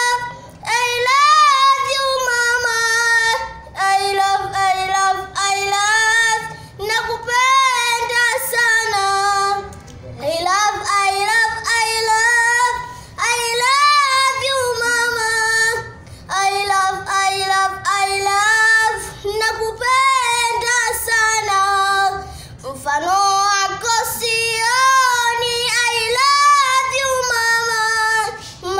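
A young boy singing unaccompanied: long, wavering held notes in phrases of a few seconds each, broken by short pauses for breath.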